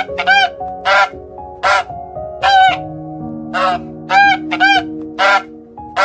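Black swan calling: a run of short, high, nasal call notes, about nine of them at uneven spacing. Under the calls is soft background music with long held notes.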